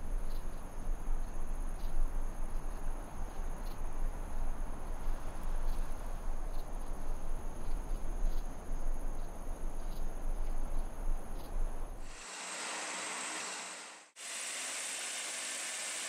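Insects trilling in steady high tones over gusty wind rumble on the microphone. About twelve seconds in the sound cuts to a steady, even rushing hiss, broken by a brief dropout two seconds later.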